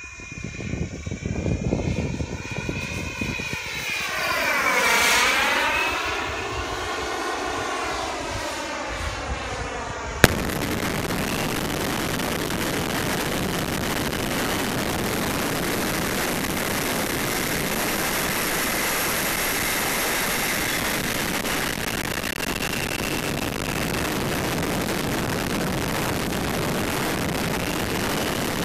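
Model jet's Jets-Munt M70XBL turbine passing overhead, swelling to its loudest about five seconds in with a sweeping, phasing sound. About ten seconds in there is a click, then a steady rush of air and turbine picked up by a camera on the jet in flight.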